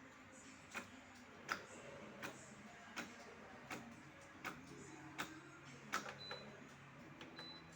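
Coffee maker running under test: a low steady hum with a sharp mechanical click repeating about every three-quarters of a second.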